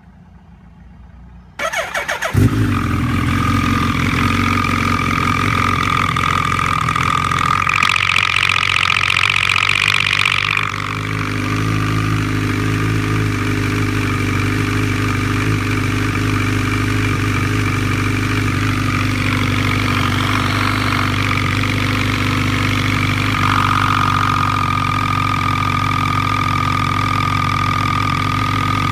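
Suzuki B-King's inline-four engine cranked on the starter and catching about two seconds in, then idling steadily, with a louder, harsher stretch around eight to ten seconds. The engine carries an abnormal noise that turned out to be loose clutch basket screws striking the crankcase.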